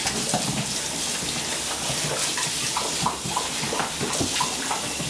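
Dalmatians making wet lapping and slurping sounds: a steady run of small, irregular splashes and smacks.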